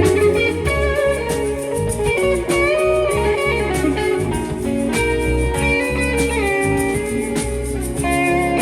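Live band playing an instrumental passage of a song: a guitar lead with bent notes over bass and drums.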